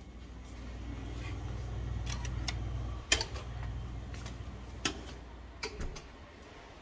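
Handling noise of a hand-held phone camera: a low rumble with several sharp clicks and taps, the loudest about three seconds in.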